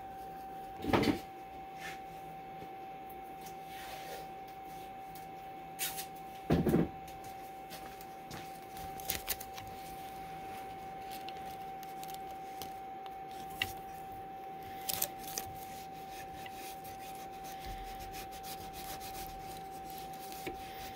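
Hands fitting a thin aluminum dog tag into a jig on the CNC bed and pressing blue tape down over it: scattered rubs, taps and knocks, the loudest about a second in and again around six and a half seconds in, with a run of small clicks near the end. A steady faint hum lies underneath.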